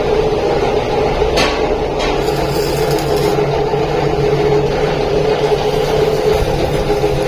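Workshop machinery running with a loud, steady hum, with a brief sharp click about a second and a half in.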